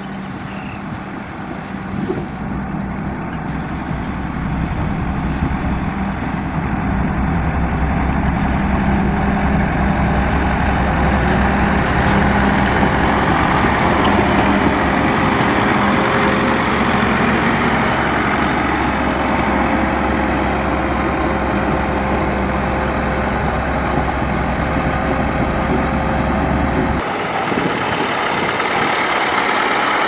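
Dresser motor grader's diesel engine running steadily under load, growing louder over the first dozen seconds. The deep engine note drops away abruptly near the end.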